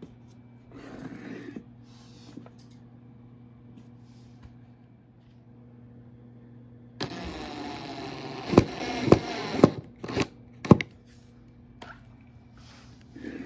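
Power drill-driver running as it drives a screw through a metal drawer rail, starting about halfway through and running for about three seconds, then stopping with about five sharp clicks as the screw seats.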